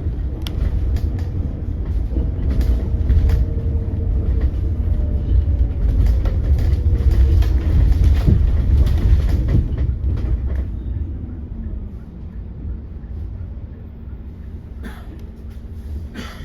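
Cabin sound of a hydrogen fuel-cell bus on the move: heavy low road rumble and body rattles, with the electric drive motor's whine sliding down in pitch. The uploader calls that motor whine a strange noise. The sound grows quieter about eleven seconds in, as the bus slows.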